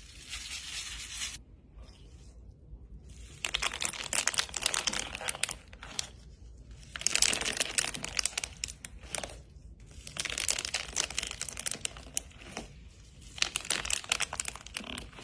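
Slime being squeezed and stretched by hand, crackling and popping in bursts of about two seconds with short pauses between.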